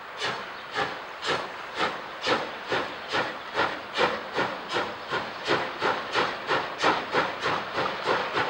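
Exhaust of CFL 5519, a class 42 (BR 42) 2-10-0 steam locomotive, chuffing as it pulls away with a passenger train: even, sharp beats that quicken from about two to about three a second as the train gathers speed.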